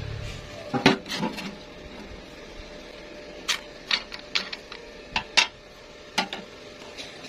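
Metal pieces clinking and knocking, about a dozen sharp irregular strikes, over a faint steady hum.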